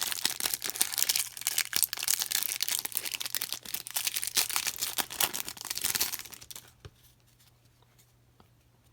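Trading-card pack wrapper being torn open and crinkled: a dense crackle of tearing and crumpling for about six and a half seconds, then it stops, leaving only a few faint clicks.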